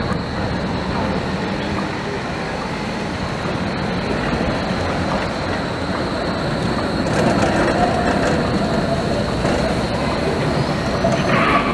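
Long articulated Berlin tram (Bombardier Flexity) rolling slowly through a curve, a steady rumble of steel wheels on rail. A light wheel squeal on the curve comes in about seven seconds in.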